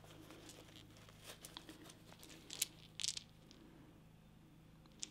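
Faint handling sounds: soft rustling and a few light clicks as small wooden dice are tipped out of a cloth drawstring pouch into a hand.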